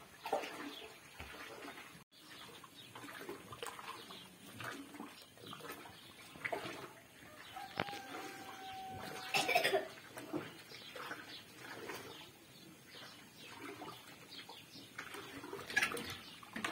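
Long wooden paddle stirring a big aluminium pot of thick halim, the wheat-and-meat porridge sloshing in irregular strokes, with bird calls in the background.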